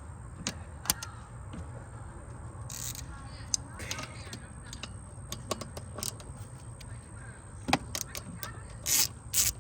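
Metal hand tools and parts clinking and rattling against each other, with scattered sharp clicks and a quick cluster of clicks near the end, over a steady low hum.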